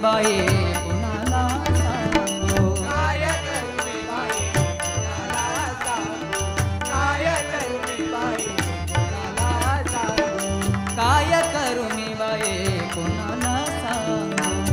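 Live Marathi devotional bhajan music: a gliding melody line over a steady drum rhythm with struck percussion.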